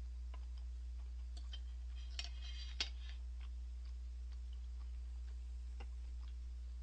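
Steady low hum with faint, scattered small clicks, and a brief cluster of clicks ending in one sharper click about two to three seconds in.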